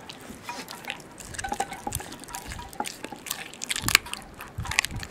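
Landseer Newfoundland puppy chewing a raw chicken leg: wet smacking with irregular crunches and clicks, loudest about four seconds in.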